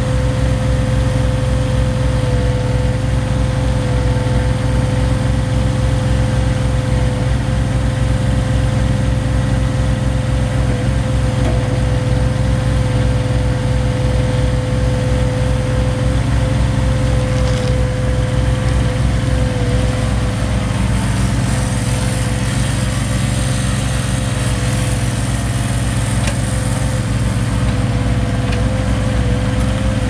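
Boxer 322 stand-on mini skid steer running steadily while it is driven and its bucket is worked, with a steady high whine over the engine note.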